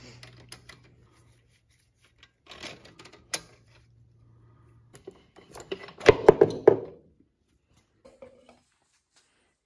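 Metal clinks and knocks of a motorcycle's rear axle being worked loose and pulled out of the wheel hub. A tight cluster of louder clunks comes about six seconds in.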